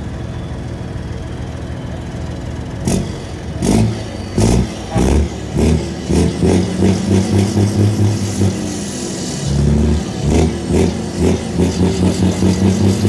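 Volvo FH truck's diesel engine idling, then revved in short throttle blips, a few at first and then a rapid string of about three a second, with a brief pause about ten seconds in.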